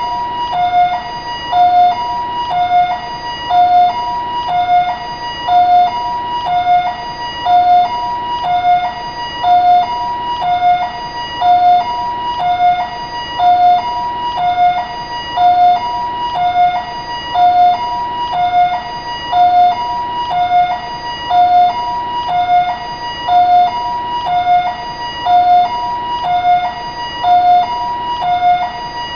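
Taiwanese ambulance siren sounding a two-tone hi-lo pattern: a higher and a lower tone alternate, each held about half a second, repeating evenly.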